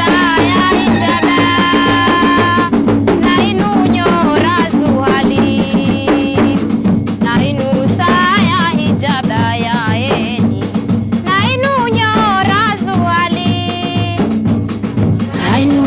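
Sambe dance song: women's voices singing over a steady, driving beat of drums and rattles.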